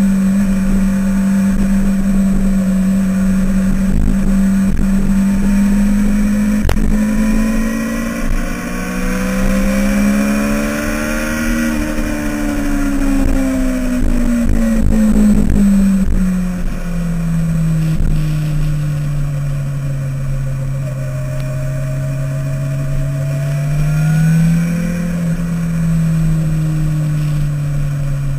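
A Mini's four-cylinder engine pulling hard on track, with wind rush over the car. The engine note climbs to a peak about twelve seconds in, falls away over the next several seconds, then holds at a lower pitch with a small rise near the end.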